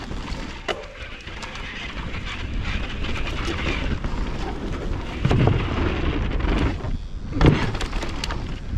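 Mountain bike descending a dirt forest trail: a steady rush of tyre and wind noise, with knocks from the bike over bumps about five and seven and a half seconds in.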